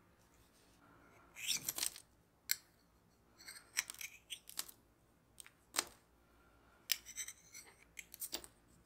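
A small metal palette knife scraping along the rim of a metal tart ring, cutting off the overhanging tart dough in a series of short scrapes with quiet gaps between them.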